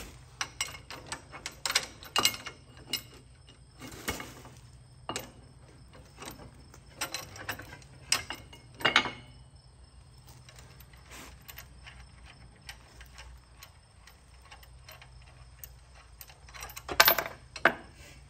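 Steel parts clinking and tapping as a block is handled and fitted between the U-bolts on a truck's front axle: irregular light clicks with a few louder clanks and a cluster of them near the end.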